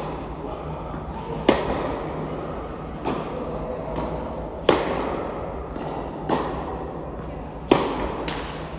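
Tennis ball struck back and forth with rackets in a baseline rally, echoing in an indoor hall. Three loud near hits come about three seconds apart, with fainter hits and bounces from the far end of the court between them.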